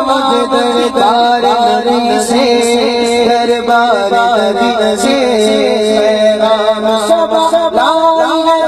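A man singing an Urdu naat into a microphone, carried through a loudspeaker, in long, ornamented lines whose pitch slides and turns without pause.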